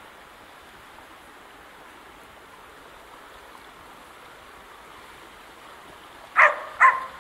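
A search and rescue dog barks twice, half a second apart, near the end, over a steady outdoor hiss. The barks are the dog's bark alert to the handler that he has found the hidden person.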